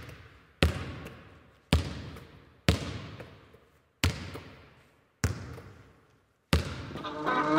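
A basketball bouncing slowly on a hard floor, six bounces about a second apart, each ringing out in a long echo. Music begins to swell near the end.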